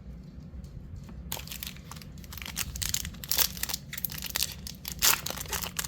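Wrapper of a trading-card pack crinkling and tearing as it is opened, starting about a second in, with sharp crackles throughout.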